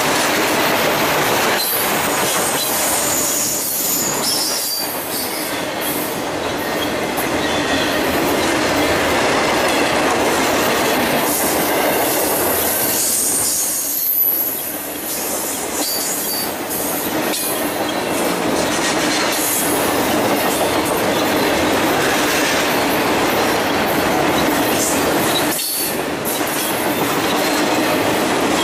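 Intermodal freight train of trailers on flat and spine cars rolling past close by: a steady rolling rumble and clatter of steel wheels on rail, with thin high wheel squeal at times. The noise dips briefly twice.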